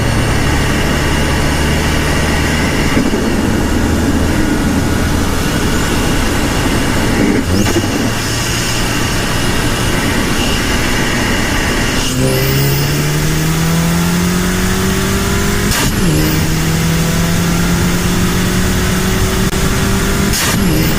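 Volkswagen Golf Mk6 GTI's turbocharged 2.0-litre four-cylinder, stage 2 tuned and decatted, being driven through the gears. The engine note climbs steadily under acceleration and drops at each upshift, with a short burst of noise at each of several gear changes.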